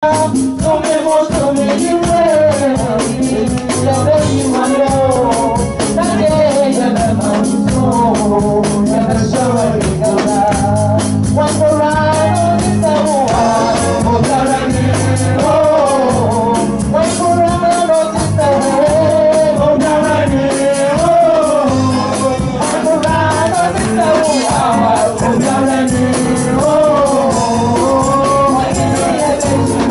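Live gospel praise singing in Twi: women's voices on microphones leading the melody over an amplified church band of keyboard, bass and percussion keeping a steady beat.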